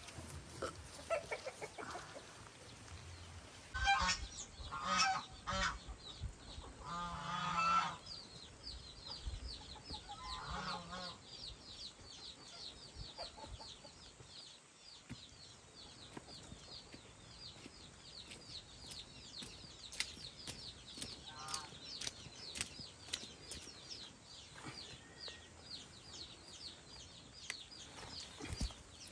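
Farm poultry calling: several loud honking and clucking calls in the first eight seconds or so, then a steady, fast, high-pitched chirping for the rest, with scattered light clicks.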